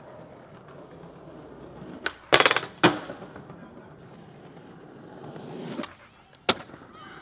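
Skateboard wheels rolling over concrete. About two seconds in come a pop and a loud clattering landing. Just before six seconds in there is another pop, and the board lands about half a second later.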